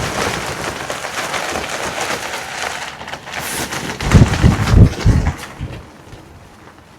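Strong wind gusting across the microphone, with a heavy buffeting gust about four seconds in, then easing off near the end.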